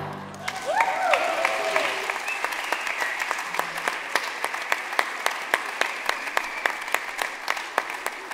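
Audience applause as a choir song ends, with a few short rising-and-falling calls near the start. After a few seconds the applause settles into rhythmic clapping in unison, about three claps a second.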